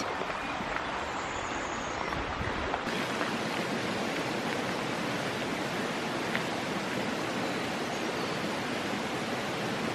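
Allerheiligen waterfalls' cascades rushing steadily, an even white-noise wash of falling water. The sound shifts about three seconds in, turning a little brighter with less low rumble.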